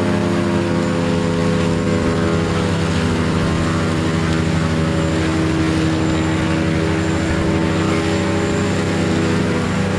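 Large vehicle engine running steadily at an even pitch, a constant drone.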